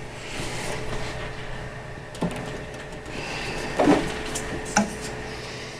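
Desktop computer case being handled: scraping and sliding of sheet-metal parts with a few sharp knocks, over a faint steady hum.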